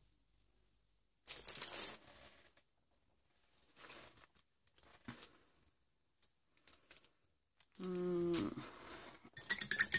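Desk handling sounds while art journaling: a short rustle about a second in, a few faint taps and clicks, a brief low hummed tone near the end, then a quick run of rapid clicks.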